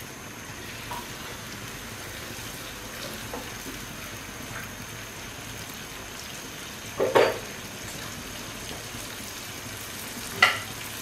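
Whole spices sizzling in oil and a little water in a pan over raised heat, a steady low sizzle. Two short, sharp, louder sounds stand out, about seven seconds in and again near the end.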